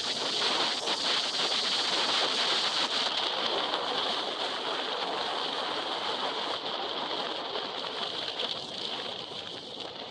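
Storm surf breaking and washing up a pebble beach: a steady rushing hiss of rough sea that eases off a little toward the end.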